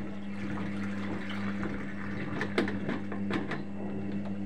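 Arçelik 3320 SA washing machine taking in water: water running into the drum over a steady low hum, with a few short clicks around the middle.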